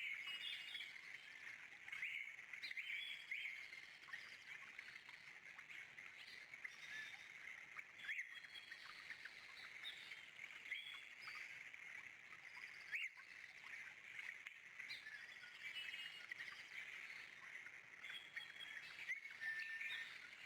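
A chorus of songbirds, many short chirps and trills overlapping without pause over a faint steady background hiss.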